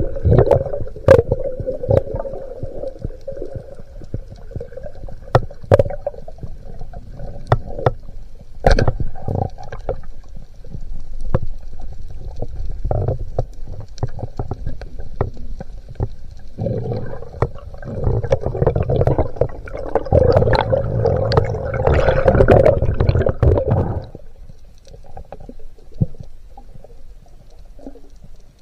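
Underwater sound picked up by a diver's camera: muffled water noise with a faint steady hum and scattered sharp clicks and knocks. A louder rushing stretch swells in the second half, then drops off sharply a few seconds before the end.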